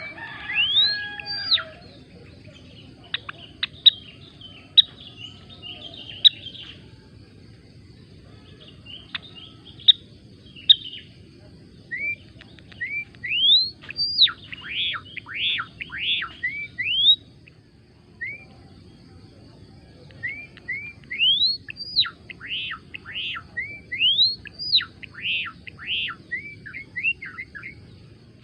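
Gelatik belong singing: bursts of quick, sharp chirps that sweep up and down in pitch, in groups of several notes with short pauses between them.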